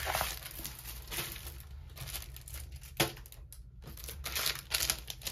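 Clear plastic packaging crinkling and rustling as it is handled, with one sharp tap about three seconds in.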